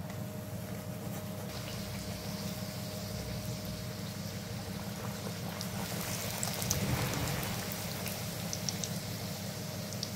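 Hot oil sizzling as a folded maida puri deep-fries, with scattered small crackles and a swell of louder sizzling about two-thirds of the way through.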